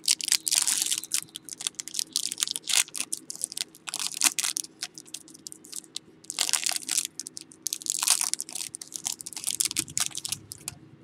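Foil wrapper of a football trading-card pack crinkling and crackling as it is opened and the cards inside are handled. The crinkling comes in several spells, busiest in the first second or so and again around six and a half and eight seconds in.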